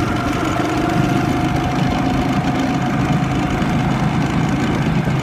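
Go-kart engine running steadily under way, heard from on board the kart, with a faint steady whine over the engine's drone.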